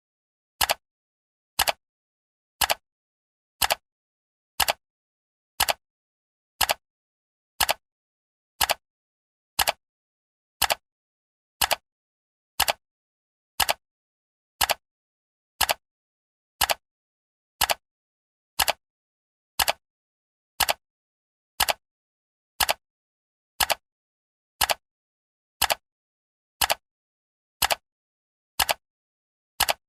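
Timer ticking: one short, sharp tick each second, evenly spaced, with silence between ticks.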